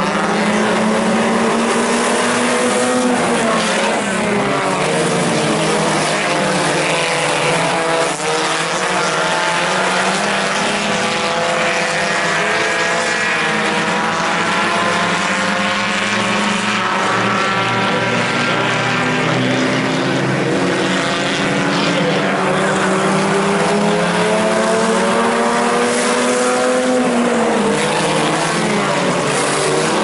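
Several IMCA Sport Compact race cars' four-cylinder engines running together, their pitch rising and falling as they accelerate and back off around the dirt oval.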